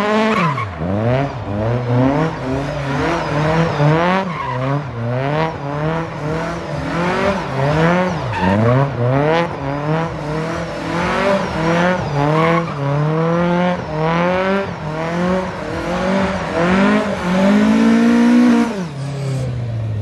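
A Mk2 Ford Escort's engine revving hard and dropping back over and over while it spins donuts, with its rear tyres squealing and smoking on the tarmac. Near the end it holds one longer high rev, then eases off.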